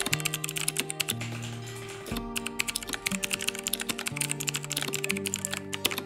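Fast typing on a Razer mechanical gaming keyboard: a dense run of rapid key clicks that eases briefly about two seconds in, over background music with held bass notes.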